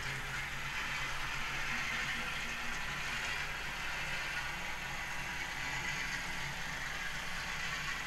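Sound-fitted Dapol N gauge Class 56 model locomotive playing its diesel engine sound through its small onboard speaker, running steadily as the model moves along the track.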